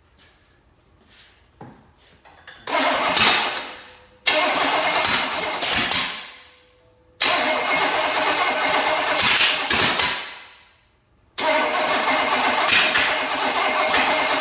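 Chevy 305 small-block V8 on an engine stand being cranked by its starter in four bursts of two to three seconds each, each spinning down as the starter is released. It is running only on a little gas poured into the carburetor and does not keep running.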